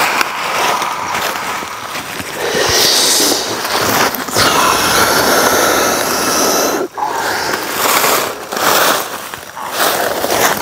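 Dry fallen leaves crunching and scraping loudly as a person crawls and lunges across the forest floor, in long noisy stretches with a brief break about seven seconds in.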